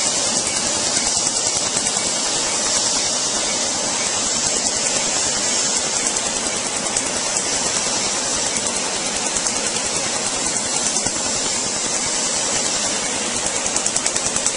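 Steady hiss of blowing air, with fast faint ticking running through it, from a laser tattoo-removal handpiece and its air hose pulsing over the skin.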